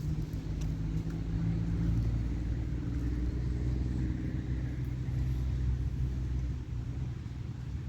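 A steady low motor hum, even throughout, with no speech over it.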